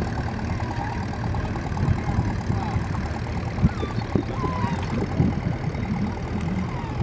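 Vintage Ferguson tractor's engine running steadily under load as it pulls a plough, with wind rumbling on the microphone.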